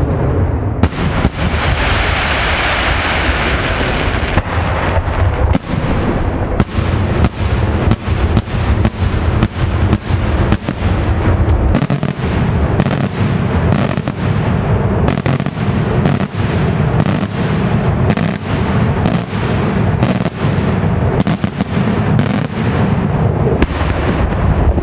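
Daytime fireworks display: aerial shells bursting in a continuous rumble of reports. A hissing crackle fills the first few seconds, then sharp bangs follow at about two a second.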